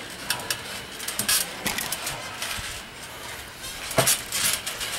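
Trampoline springs and frame creaking and rattling in short clicks as wrestlers move on the mat, with a sharper thud about four seconds in.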